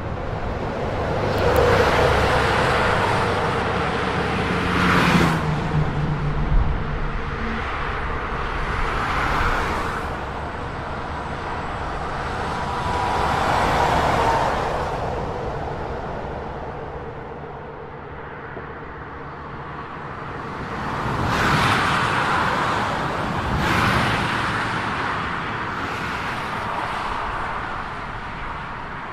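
Road traffic on a multi-lane street: cars passing one after another, the noise swelling and fading with each group that goes by.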